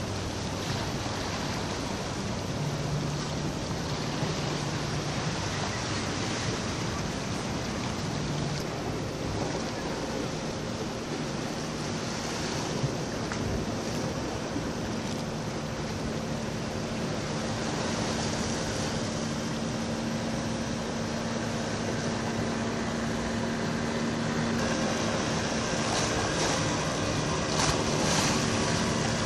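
Steady sea surf and wind noise, with the low hum of passing boat motors under it. A small boat's outboard motor comes up louder near the end.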